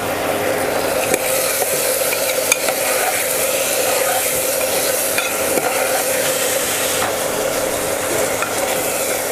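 A steel spatula stirring kohlrabi pieces, peas and masala in a pressure cooker pan, scraping and clicking now and then against the metal sides, over a steady sizzle of the vegetables frying. A steady hum runs underneath.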